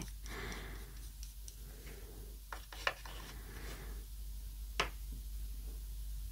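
Soft pastel stick scraping and rubbing on paper, faint and scratchy, with a few short sharp taps about halfway through and a louder click later on.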